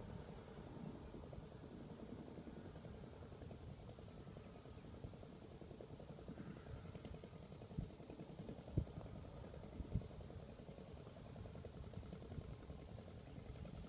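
A tractor engine running steadily at low level, with three sharp knocks about eight to ten seconds in.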